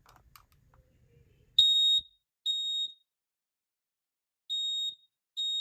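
Smoke alarm sounding on its test button: a high-pitched piezo horn giving short beeps in pairs, two close together, a pause, then two more, the first beep the loudest. It is not sounding the code 3 (temporal-three) evacuation pattern.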